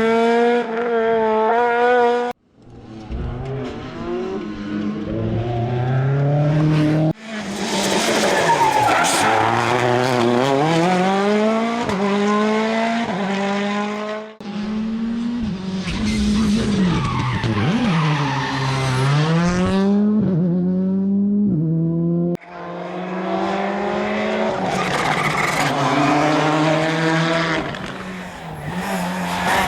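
Rally cars driven hard on a special stage, engines revving up and dropping back through gear changes and braking as they pass. The sound comes as several separate passes joined by abrupt cuts.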